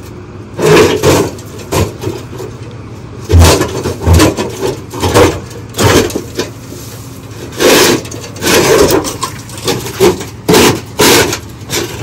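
Irregular knocks, thumps and scrapes of old, rotted wooden bulkhead stair treads being stepped on and pushed at by hand, with two heavier thumps around three and a half and four seconds in.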